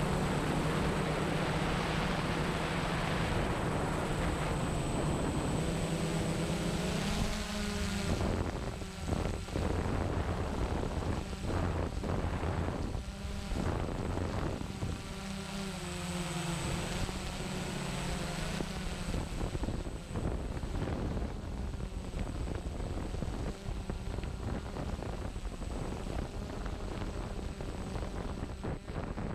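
DJI Phantom quadcopter's electric motors and propellers humming in flight, the pitch shifting as it manoeuvres, with wind buffeting the on-board microphone.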